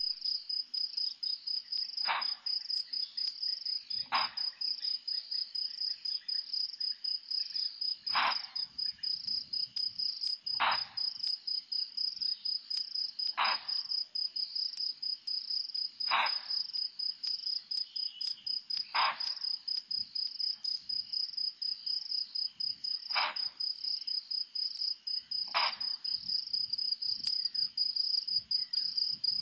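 Bushbuck alarm call: nine short barks, one every two to four seconds. Behind them runs a steady high-pitched insect trill.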